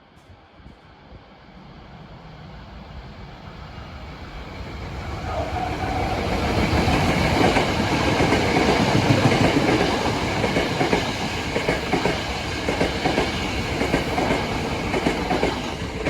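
A train approaching and passing on jointed track, its wheels knocking over the rail joints in a rapid clickety-clack. It grows from faint to loud over the first six seconds or so, then clatters steadily as the cars go by.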